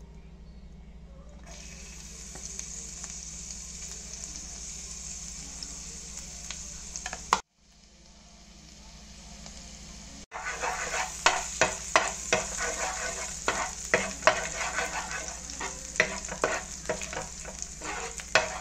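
Oil heating in a nonstick frying pan with a faint steady hiss. After a brief cut-out, chopped garlic sizzles and crackles loudly in the hot oil, with a spatula stirring it near the end.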